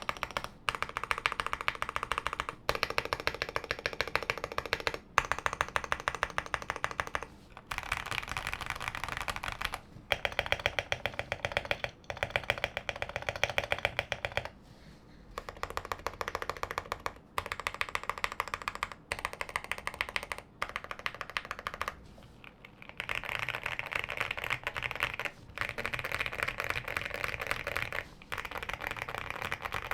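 Fast typing on a QK65 custom mechanical keyboard with Gateron Oil King linear switches, an FR4 plate and MT3 keycaps: a dense run of keystroke clacks with a deep sound signature. The typing comes in stretches of a few seconds, broken by brief pauses.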